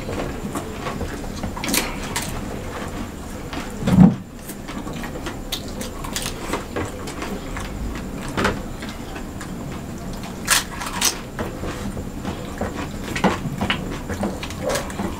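Two people eating dosa and doi fuchka with their hands: chewing and mouth noises, with scattered small clicks and taps of fingers and food against plates and bowls. One louder thump about four seconds in.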